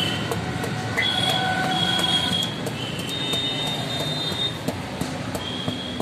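Light, irregular taps of a metal rod hammering a rubber patch onto the inner liner of a tubeless car tyre, to bed the patch down over a large hole. High squealing tones come and go over a steady low background rumble.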